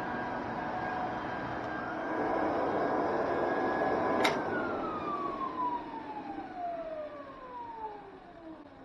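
NSS Mustang 1500 electric floor burnisher running with its pad on vinyl composition tile. It is switched off with a click about four seconds in, and its whine then falls steadily in pitch and fades as the pad spins down to a stop.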